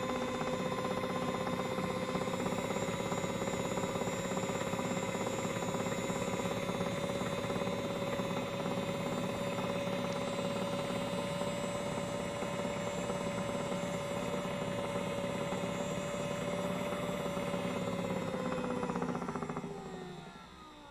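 Small electric motor of a modified Miele W1 toy washing machine spinning its drum, with a steady whine that rises slightly in pitch a couple of seconds in. Near the end the motor stops and coasts down, the whine falling in pitch and fading.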